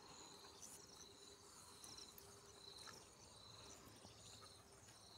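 Faint crickets trilling over near silence: short pulsed trills that repeat every second or so.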